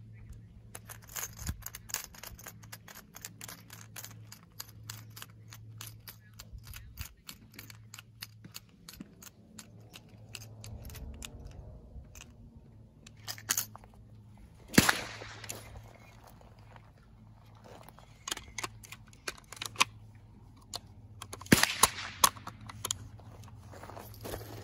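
Rapid sharp clicks of .22 cartridges being pressed one by one into a GSG AK-47 .22 rifle magazine, several a second. Later the clicks come more scattered, with one louder knock partway through and another quick run of clicks near the end.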